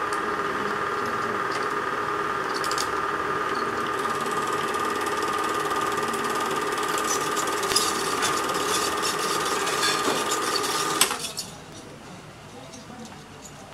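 Cabin 8mm film projector running: a steady mechanical whir with light clicking from its mechanism, which stops abruptly about eleven seconds in.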